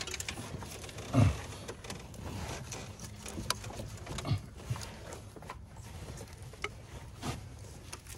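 Scattered knocks and clicks of metal parts as a fuel rail is rocked back and forth and pulled up by hand, with a loud thump about a second in; the rail is still held fast in the engine.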